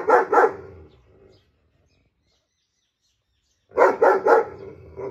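German shepherd barking loudly at another dog. It gives two or three deep barks at the start, then another quick run of three about four seconds in, and a weaker bark near the end.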